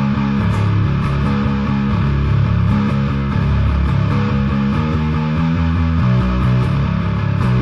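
Instrumental rock music led by an electric bass guitar playing a riff of sustained low notes that change about every half second.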